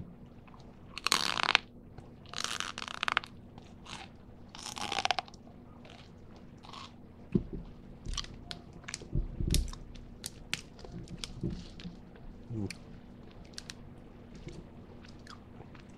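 Freeze-dried saltwater taffy being bitten and chewed close to a microphone, with a crunchy sound. There are three loud crunches in the first five seconds, then a run of quieter, crisp crunching clicks as it is chewed down.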